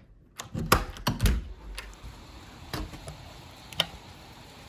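A door opening: a few knocks and thumps of the handle and latch. Then, from about two seconds in, the steady hiss of rain outside, with a couple of sharp clicks.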